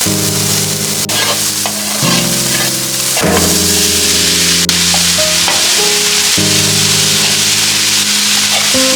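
Food sizzling as it fries in a pan, a steady hiss, under background music of sustained chords that change every second or two.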